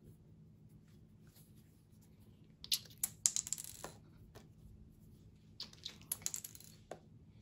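Small plastic food-colouring dropper bottle being worked open by hand: two bursts of rapid clicking and crackling from the plastic cap, about three seconds in and again near the end.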